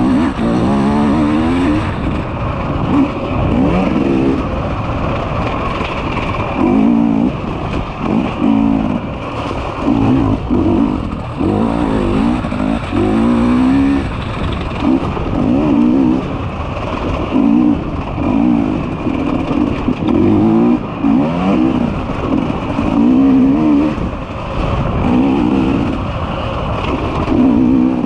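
Enduro motorcycle engine being ridden through a test, the throttle opening and closing in short bursts again and again, the pitch rising with each burst before dropping away.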